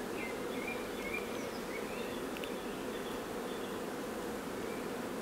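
Honeybees buzzing in a steady hum.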